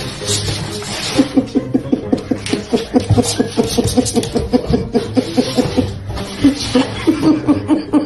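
A person laughing hard in a long run of quick, even pulses, about four or five a second. It starts about a second in, breaks off briefly, and picks up again near the end.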